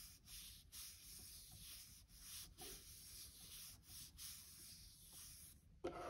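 Faint rubbing of a hand smoothing a paper sticker down onto a planner page, in strokes that stop and start. Just before the end comes a short, louder knock as scissors are picked up off the table.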